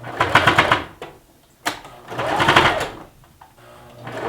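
Baby Lock sewing machine stitching in three short bursts of about a second each, the needle running fast, with a low steady hum in the pauses between.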